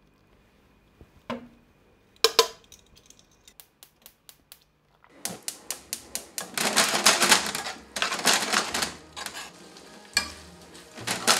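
Metal tongs tossing boiled spaghetti with broccoli and bacon in a hot non-stick frying pan. A few sharp clicks come first, then from about five seconds in there is rapid clacking and scraping with sizzling, in three bursts.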